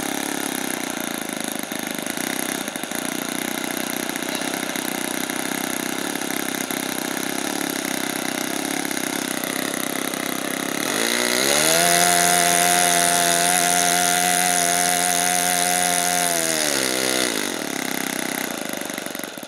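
Ugly Stick RC airplane's .70-size two-stroke glow engine running on the ground with the propeller turning. About eleven seconds in it is throttled up to a steady high-pitched full-power run, held for some six seconds, then throttled back down.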